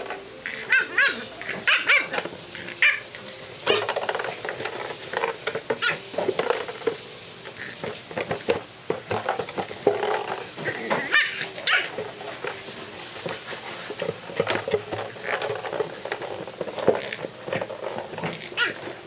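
Empty plastic PET bottle crinkling and crackling as a French bulldog puppy noses, bites and shoves it about, with a few short puppy yips in the first seconds.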